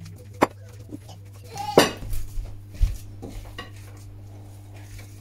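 Hand squeezing and mixing mashed potato in a ceramic bowl, with a sharp clink against the bowl about half a second in, a louder clatter near two seconds and a dull thump near three seconds. After that, only faint handling over a steady low hum.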